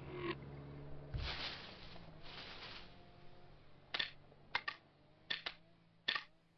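Foley sound effects: a low rumble fading away, two short soft swishes, then six sharp taps or clicks, mostly in quick pairs.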